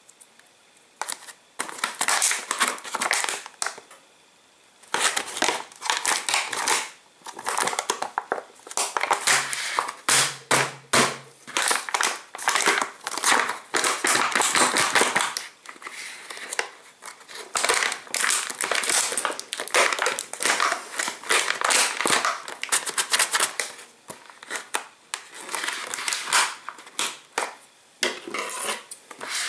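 Plastic food-packaging tray and film crinkling and crackling as hands pull and peel at it, in irregular spells with short pauses.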